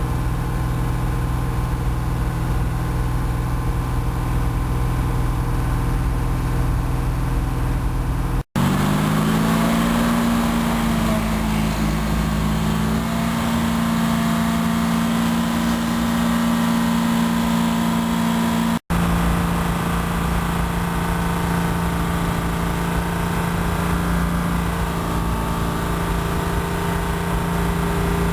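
C6 Corvette V8 running through a Sniper Racing ShotGun aftermarket exhaust: idling steadily, then, after a brief cut about eight seconds in, held steady at a raised engine speed. After a second brief cut, about ten seconds later, it holds steady at a slightly lower speed.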